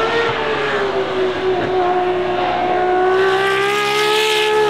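Ferrari 599XX Evo's V12 engine running at high revs as the race car drives past. Its note holds a fairly steady pitch that creeps slowly upward and grows brighter and louder in the last couple of seconds.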